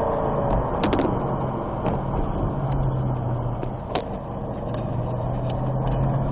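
Car engine running while driving, heard from inside the cabin, a steady drone with a few light clicks. The engine sound dips briefly about four seconds in.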